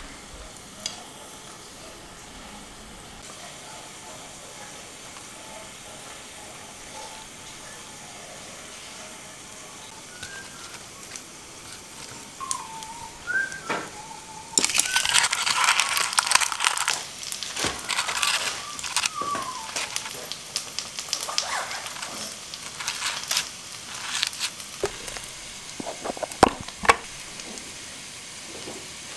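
Cooking oil sizzling and crackling in a pan, loudest for about five seconds in the middle. A couple of sharp clicks near the end.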